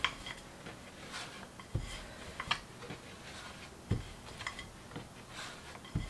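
Wooden rolling pin rolling out a stuffed paratha on a wooden board: soft rubbing swishes with a string of light clicks, and two duller knocks, about two seconds in and again about four seconds in.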